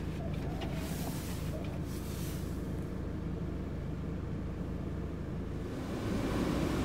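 Steady low rumble of a car's engine and road noise heard from inside the cabin, with a windscreen wiper sweeping across the glass near the start; the rumble grows louder about six seconds in.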